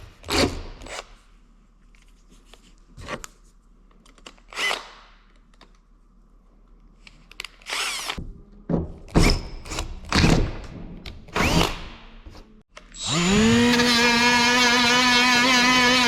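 Electric drill run in short bursts while drilling out holes. About thirteen seconds in, a motor spins up and holds a steady, even whine.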